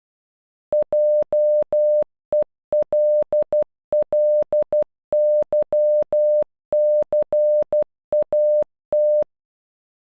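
Electronic Morse code tone, a single steady mid-pitched beep keyed in dots and dashes, spelling JELLYCAT (.--- . .-.. .-.. -.-- -.-. .- -). It stops about nine seconds in.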